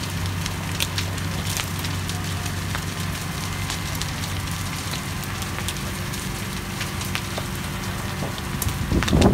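A house burning fully involved: flames crackling with scattered sharp pops over a steady low mechanical hum. A louder, uneven rumbling rises near the end.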